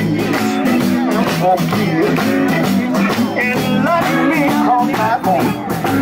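Live blues band playing, electric guitar over a steady beat.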